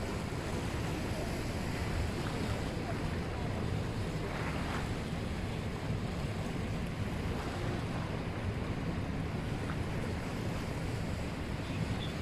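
Steady rushing of the Rhine Falls and the churning white water below them, with wind buffeting the microphone.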